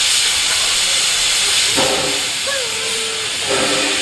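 Steady, loud hiss of steam venting from steam locomotive C17 967.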